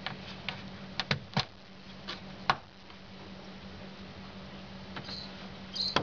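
Fingers tapping and pressing along the bottom edge of an Isuzu pickup's plastic inside door trim panel, giving a handful of sharp clicks and taps in the first two and a half seconds and a softer pair near the end.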